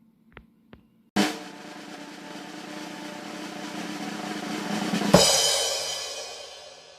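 Two faint clicks, then a drum roll sound effect that swells for about four seconds and ends in a cymbal crash that rings out and fades.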